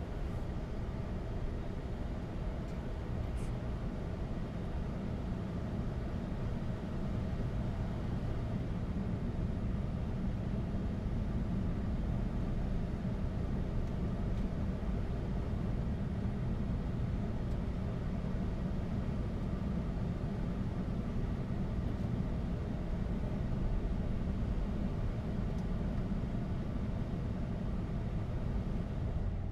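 Steady flight-deck noise of a Boeing 747-8 taxiing: a constant low rumble with hiss over it, from the engines at taxi power and the cockpit airflow.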